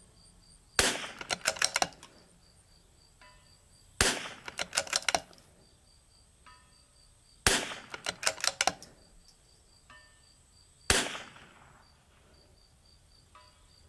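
Four shots from a Vudoo bolt-action .22 LR rifle, about three and a half seconds apart. Each shot is followed by a quick run of clicks as the bolt is worked to chamber the next round. About two and a half seconds after each shot a faint ring comes back from a hit on the steel target at 400 yards.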